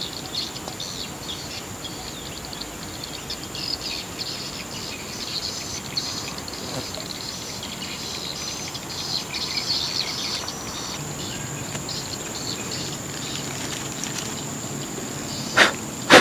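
Insects chirping and buzzing in a steady high drone. Near the end, two sharp knocks stand out above it.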